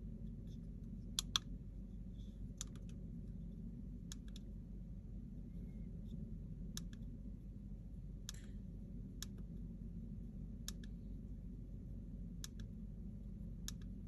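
Clicks of the push buttons on a handheld Afterburner diesel-heater controller as it is paged through its menus: about ten single sharp clicks, a second or two apart, over a steady low hum.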